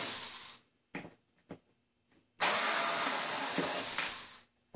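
Cordless drill-driver backing screws out of a grand piano's lid hinge. The motor runs briefly and stops, then a couple of small clicks follow, then it runs again for about two seconds and winds down, with a click just after.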